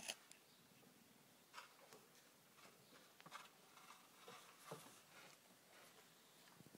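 Near silence with faint scattered clicks and rustles, and one sharp click right at the start.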